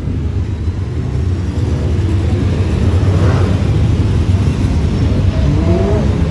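Several Brisca F2 stock car engines running hard as the cars race past, a dense low rumble that grows louder about two seconds in, with one engine revving up near the end.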